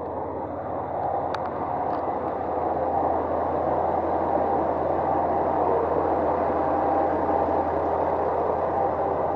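HOT7000-series Super Hakuto diesel multiple unit pulling slowly into the platform, its diesel engines running with a steady low hum. It grows louder over the first few seconds as the cars come alongside, then holds.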